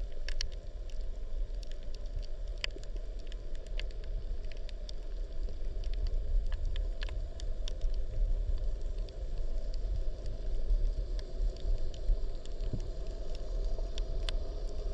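Underwater ambience on a shallow coral reef: a steady low rumble of water against the camera, with scattered sharp clicks and crackles throughout.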